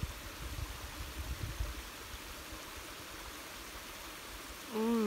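Steady outdoor hiss, with low rumbling bumps during the first two seconds; a person hums "mmm" near the end.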